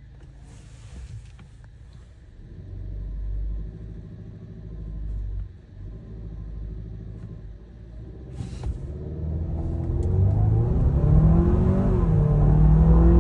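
2024 Hyundai Santa Fe's 2.5-litre turbocharged four-cylinder heard from inside the cabin, held at low revs with the car standing, then from about eight seconds in pulling away at full throttle, its note climbing and getting louder, with a dip in pitch at an upshift about eleven seconds in. Two short hisses come near the start and just before the launch.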